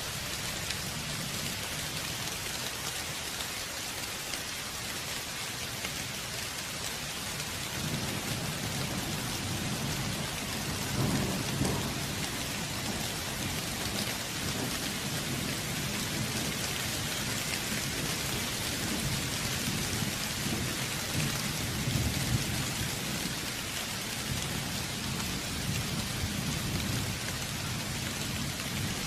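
Steady heavy rain falling, with rolling thunder rumbling low from about a quarter of the way in and swelling twice.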